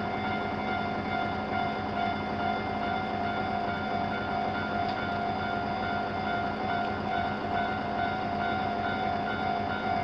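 Japanese railroad crossing warning bells ringing steadily as the crossing is closed. Two crossings' bells sound together, one ringing slightly faster than the other.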